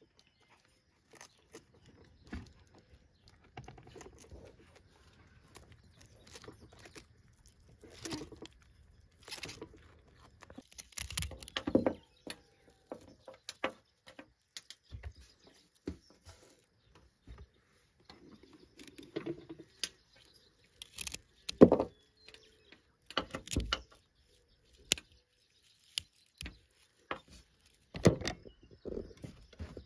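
Fresh broccoli heads being broken into florets by hand: irregular snaps and crunches of the stems, with soft rustling between them. The loudest snap comes about two-thirds of the way through.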